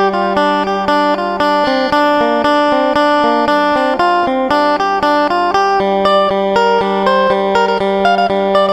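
Phin, the Isan plucked lute, playing a lively run of quick plucked notes over a steady held drone note.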